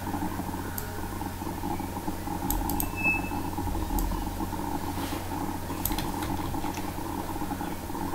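Steady electrical hum and hiss of room noise, with a few faint, scattered clicks from a computer mouse and keyboard while code is being copied and pasted.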